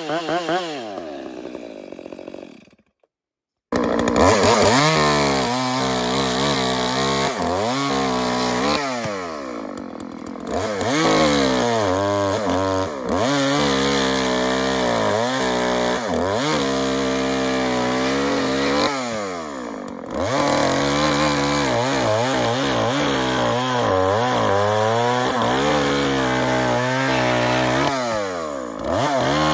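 Two-stroke chainsaw winding down, then, after a brief cut-out a few seconds in, running at full throttle in a cut. The engine pitch dips and recovers repeatedly as the chain bites into the wood.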